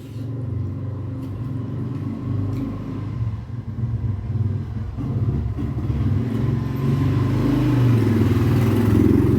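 Motorcycle engine running nearby with a low, steady rumble that grows louder toward the end.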